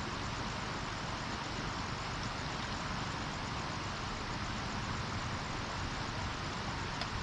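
Steady, even rush of flowing river water, with no breaks or changes.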